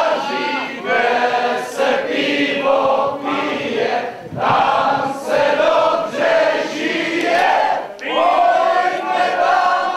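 A crowd of many voices singing together in chorus, loud, in phrases of about a second with short breaks between.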